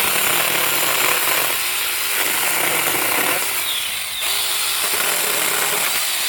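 Saker 6-inch 20-volt battery mini chainsaw running and cutting through wood, a steady electric motor and chain sound that dips briefly about four seconds in.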